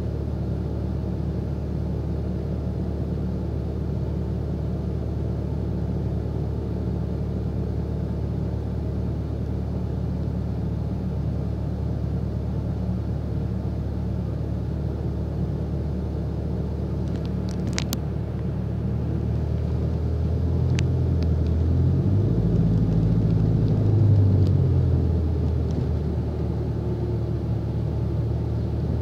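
Bus engine running, heard from inside the saloon as a steady low hum. A sharp click comes about seventeen seconds in, and the engine then grows louder for several seconds as the bus moves off before settling again.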